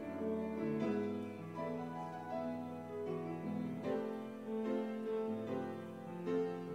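Offertory music played on piano, with held notes and chords changing about once a second.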